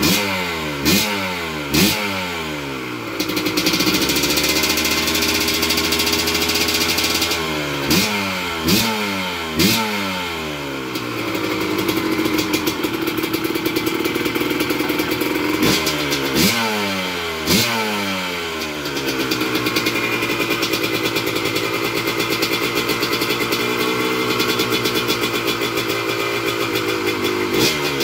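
Kawasaki KMX 125's single-cylinder two-stroke engine, freshly fitted with a 28mm OKO flatslide carburetor, idling and blipped three times in quick succession, three times over, each rev dropping straight back to idle. Its mixture screw has just been set, and it runs and returns to idle cleanly.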